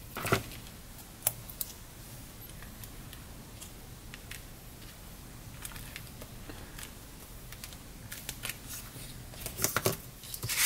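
Paper and card pieces being handled and pressed down on a craft table: scattered light clicks and rustles, with a quick cluster of them near the end.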